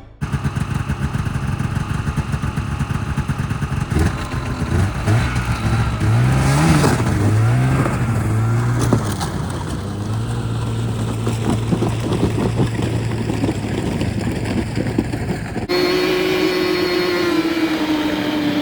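Snowmobile engine under way, its pitch rising and falling as the throttle is worked, then running steady; after an abrupt cut near the end it runs at a higher, slowly falling pitch.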